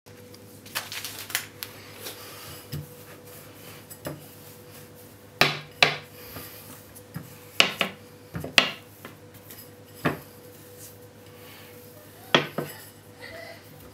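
A glass tumbler knocking and clinking against a metal baking tray in a string of sharp, irregularly spaced knocks while dough is pressed out on the tray.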